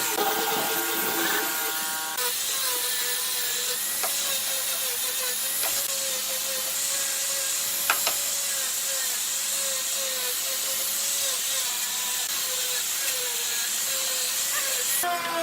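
Electric power tool running on wood, a steady motor whine that wavers slightly in pitch over a hiss of cutting or sanding. The sound changes abruptly about two seconds in and again near the end, with a few sharp ticks in between.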